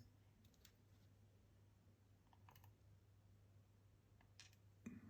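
Near silence with a few faint, light clicks of small lock pins being picked out and set down in a pinning tray.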